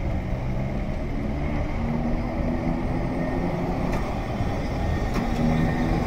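Class 210 streetcar accelerating away from a stop, its nose-suspended traction motors giving a geared hum that rises in pitch as it picks up speed. A couple of sharp clicks come about four and five seconds in.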